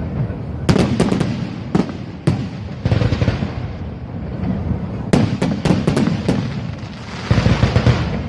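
Fireworks going off: a quick run of sharp bangs about a second in, two more single bangs shortly after, a rapid cluster around five seconds, then a dense crackling stretch near the end.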